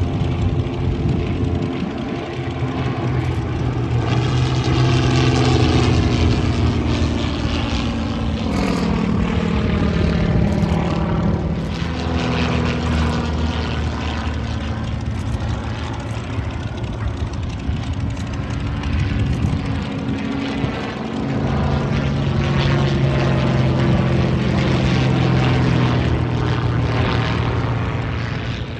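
Two propeller-driven aerobatic planes flying a display overhead, their piston engines droning. The pitch slides up and down and the loudness swells and fades as they pass and manoeuvre, with a marked downward slide about eight seconds in.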